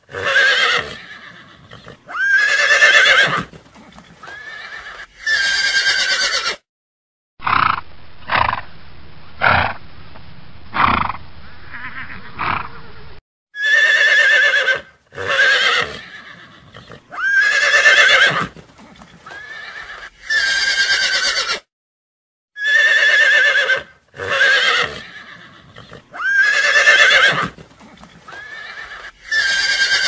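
Horses whinnying: loud, trembling neighs about a second long each, coming in a repeating run of three or four. In the middle comes a stretch of shorter, duller horse calls, about one a second.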